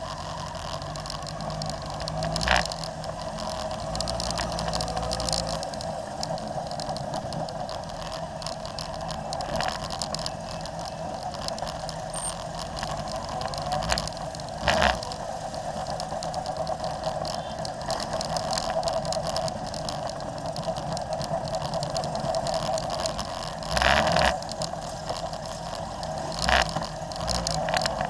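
Motorcycle engines running at low speed as a pack of motorcycles rides slowly, heard from on board one of the bikes. A few short knocks stand out, the loudest about a second before the end of the third quarter.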